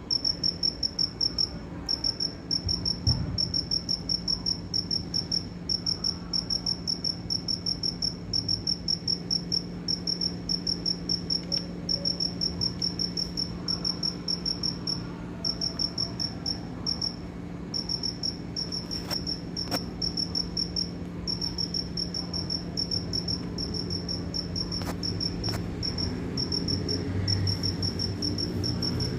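Cricket chirping: a fast, even run of high-pitched chirps that stops briefly now and then and starts again.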